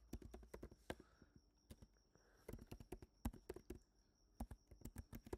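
Faint computer keyboard typing: irregular key clicks in quick bursts, with a short pause about two seconds in.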